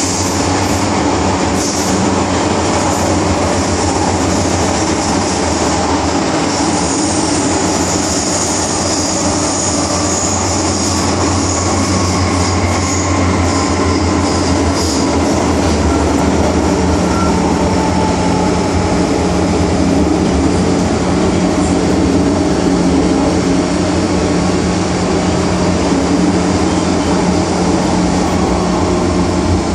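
MTR M-Train (Metro-Cammell electric multiple unit) heard from inside the passenger car while running: a steady, loud rumble of wheels on rail and traction equipment, with a high hiss over it that is stronger in the first half. A steady low hum joins about halfway through.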